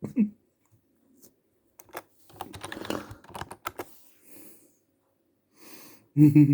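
A person hiccupping: a sharp voiced hic right at the start and a louder one near the end, with a stretch of rapid clicking in between.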